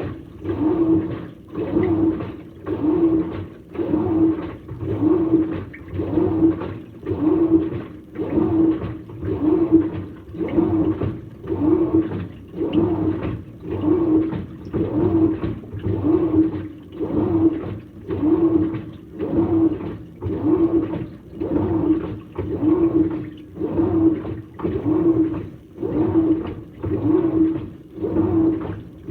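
Samsung top-load washing machine agitating a load of towels and nightgowns in deep water: the wash motor hums and the water swishes in a steady, even rhythm of pulses as the wash plate turns back and forth.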